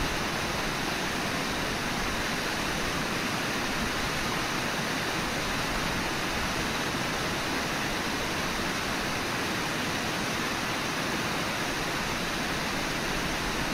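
Steady rush of water from the Brooks River and falls, an even, unchanging noise with no distinct splashes.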